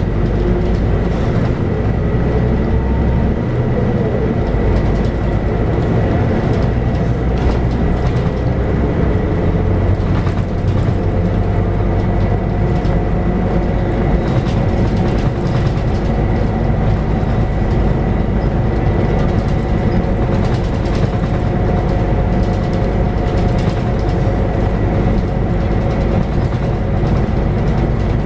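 Scania K94UB bus underway, heard from inside: its Scania DC9 9-litre six-cylinder diesel running steadily through the ZF automatic gearbox over a deep road rumble, with a thin steady high whine and frequent small rattles and clicks.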